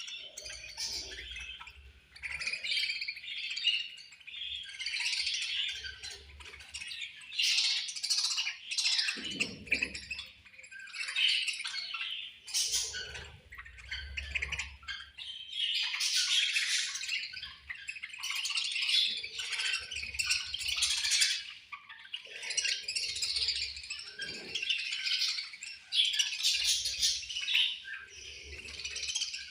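Budgerigars chirping and warbling continuously, many calls overlapping in a busy high-pitched chatter.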